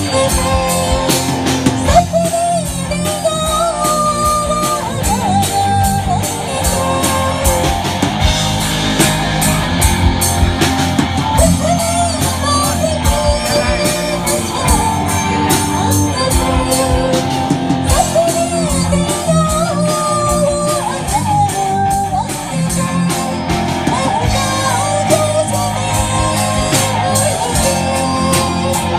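Live rock band playing a song: a lead voice singing a wavering melody over electric guitar, bass and a steady drum beat, with the echo of a large hall.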